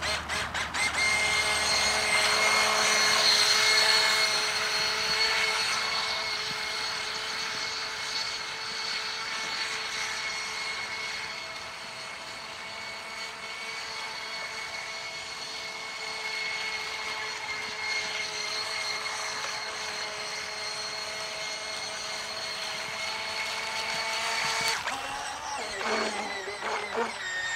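Electric motor of a toy-grade RC catamaran speedboat running at full throttle on a LiPo battery: a steady high whine over a hiss, fading as the boat runs away and growing again as it comes back. Near the end the whine drops in pitch as the throttle comes off.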